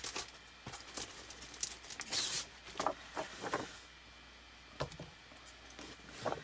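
Craft materials being handled on a tabletop: scattered light taps and clicks, a little rustling, and a brief scrape about two seconds in.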